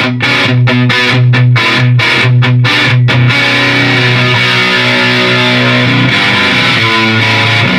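Electric guitar played through a Beetronics Tuna Fuzz pedal into a Marshall Plexi amp and Marshall cabinet: rapid, chopped staccato fuzz chords, then from about three seconds in a chord left to ring on, with chord changes near the end.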